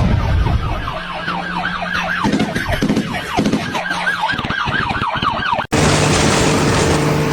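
A siren in a fast yelp, its pitch sweeping up and down about three times a second. Near the end it cuts off abruptly and gives way to a loud rushing noise with a steady low hum.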